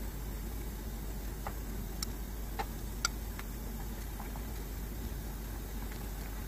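A handful of light clicks and taps from metal kitchen tongs on a plate and cooked shrimp as the shrimp are set out, over a steady low background hum.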